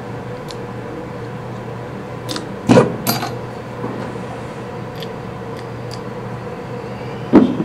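Metal lathe parts and an Allen wrench clinking and knocking as a mini-lathe headstock is taken off and handled: a few light clicks and two louder knocks, about three seconds in and near the end, over a steady low hum.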